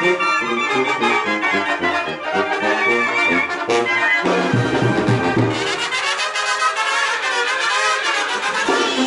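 Mexican brass band playing dance music, trumpets over a sousaphone bass line. The music changes about four seconds in, and the bass drops out for a few seconds before coming back near the end.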